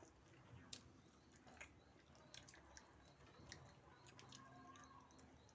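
Near silence, with faint scattered clicks of someone eating and chewing food.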